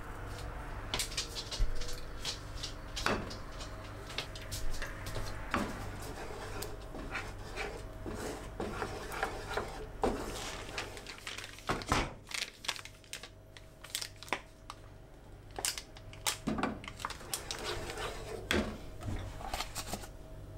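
Wooden spatula stirring and scraping a thick white sauce in a frying pan: irregular scrapes, taps against the pan and sticky squelches as the sauce is worked, over a low steady hum.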